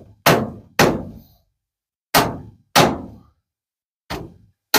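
Six sharp knocks in three pairs, each blow ringing out and dying away within about half a second, as a wooden roost post is knocked and set in the dirt.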